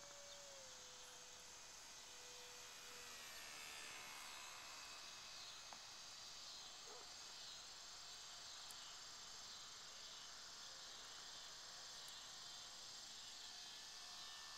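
Faint, steady chirring of crickets and other insects at dusk. Over it, the thin whine of the E-flite Curtiss N9 model biplane's electric motor can be heard faintly, dropping in pitch near the start and again about three seconds in as the plane passes.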